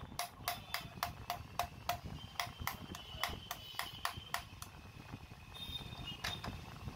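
Rapid metallic tapping, about four knocks a second, each with a short ring, as a hand tool strikes the front end of a hammer drill whose hole bit is jammed in it; the tapping stops about four and a half seconds in.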